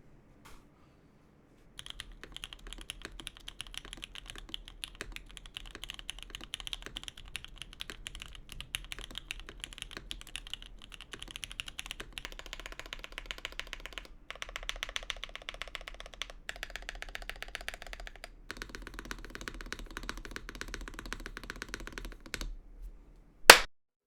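Mechanical keyboard with lubed and filmed switches being typed on rapidly and continuously, with a few brief pauses. A single loud, sharp knock comes near the end.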